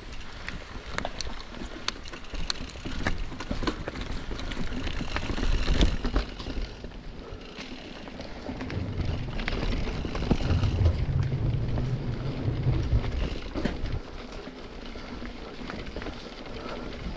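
Mountain bike moving over a rough, rooty trail: a steady crunch with scattered clicks and knocks, and a low rumble from about nine to thirteen seconds in.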